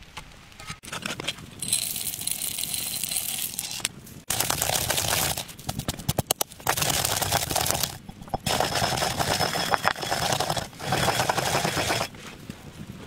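Black peppercorns being crushed and ground with a pestle in a mortar: gritty crunching and scraping in several bouts of a second or two with short gaps between, stopping shortly before the end.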